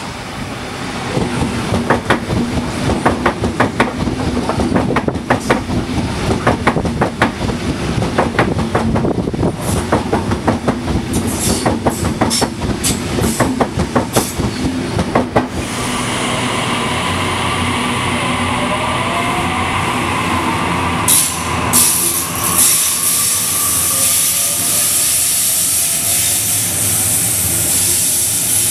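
An H-set (Oscar) double-deck electric intercity train passing close at speed, its wheels clattering rapidly over the rail joints over a steady low hum. After about sixteen seconds the clatter gives way to a Sydney double-deck electric suburban train at the platform, a steady rumble and hiss with its motors whining, rising in pitch as it gathers speed.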